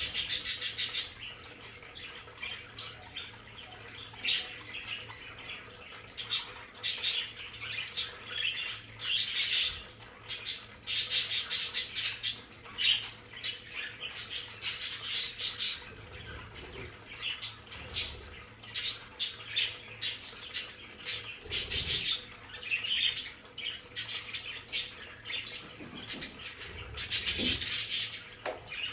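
A flock of budgerigars (budgies) chattering, with many short chirps and squawks in quick succession and louder bursts now and then.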